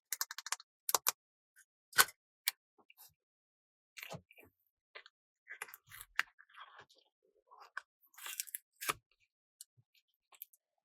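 Small plastic toys and containers being handled: scattered light clicks, taps and crinkles, with a sharper tap about two seconds in and a short burst of crackling near the end.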